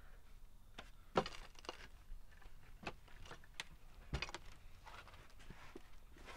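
Scattered knocks and clatter of hard objects, with a louder knock about a second in and another around four seconds in.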